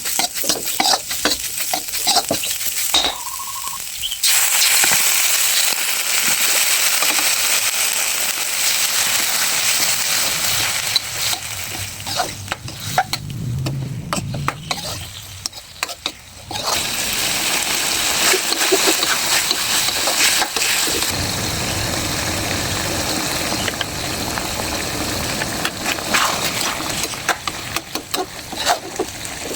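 Food sizzling in a hot pan while it is stirred, with clicks and scrapes from the stirring. The sizzle breaks off briefly twice, a few seconds in and about halfway through.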